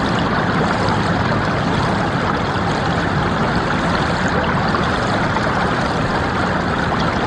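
Small stream babbling and bubbling over stones, a steady, even wash of running water.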